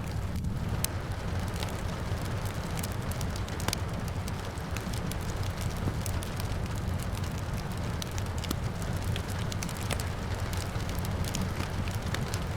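Wood fire crackling, with many sharp irregular pops, over a steady low rumble and the even hiss of rain falling outside.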